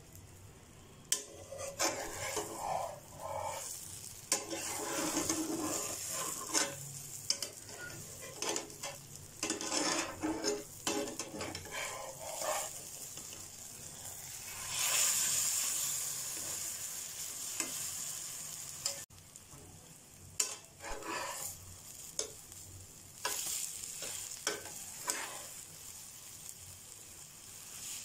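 Spinach and egg omelette sizzling in a non-stick frying pan, with a spatula scraping and knocking against the pan as it is loosened, turned and broken up. The sizzle swells loudly for a couple of seconds about halfway through, just after the omelette is flipped.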